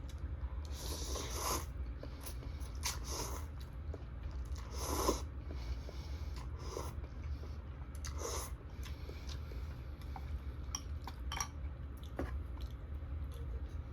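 Close-miked eating: irregular chewing, biting and mouth noises from a person eating, a few louder bursts spread unevenly through the stretch, over a steady low hum.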